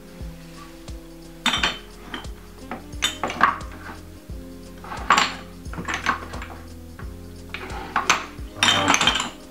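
Kitchen utensils and dishes clattering: a metal spoon clinking and knocking against bowls in short clatters every second or so, with background music playing underneath.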